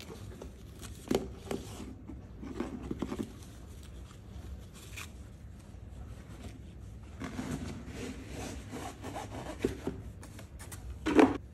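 Gloved hands untying a fabric ribbon and handling a textured cardboard gift box: soft rubbing and rustling, with a few light knocks and a louder bump near the end.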